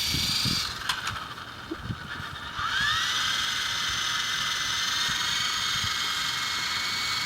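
Small remote-control helicopter's motor and rotor whining: the whine fades about half a second in, then spins up with a rising whine at about two and a half seconds and runs steadily.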